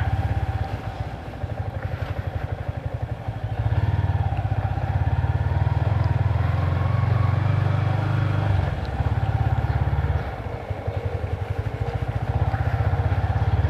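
Motorcycle being ridden, its engine running with a low, fast-pulsing drone that grows louder about four seconds in, eases off around ten seconds and picks up again near the end. It is heard through a waterproof camera case.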